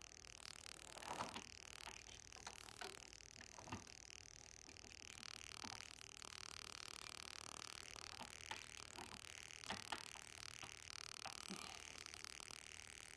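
Faint, scattered metallic clicks and clinks of a motorcycle drive chain and front sprocket being handled by a gloved hand while the sprocket is worked off its splined shaft, with the chain held slack.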